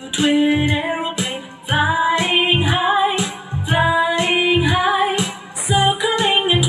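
A woman singing a children's rhyme over a backing track with a steady beat.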